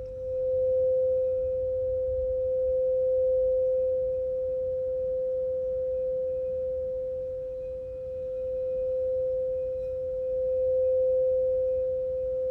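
Crystal singing bowl for the root chakra ringing out with one steady, pure tone that swells and fades slowly in loudness.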